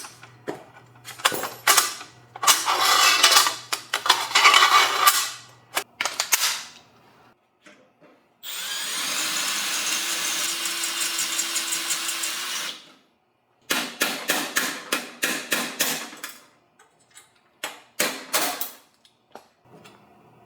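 Power drill running steadily for about four seconds in the middle, with bursts of rapid clicking and knocking before and after it.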